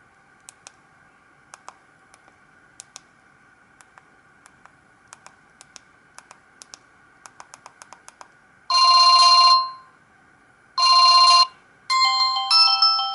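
Samsung GT-E1175T mobile phone: sharp keypad clicks as buttons are pressed, coming faster after about seven seconds, then two loud buzzy tone bursts and the start of a beeping ringtone melody played through the phone's small speaker.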